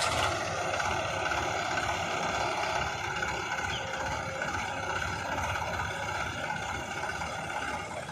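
Diesel engine of a JCB 3DX backhoe loader running steadily, with no change in pitch, while the machine works.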